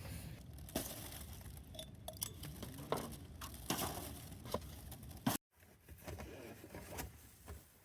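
Assorted light clicks, knocks and clinks of small objects being handled over a low rumble, cutting off abruptly about five seconds in and resuming more quietly.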